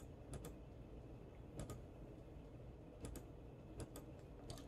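Faint, scattered clicks from operating a computer, some single and some in quick pairs, over a low steady room background.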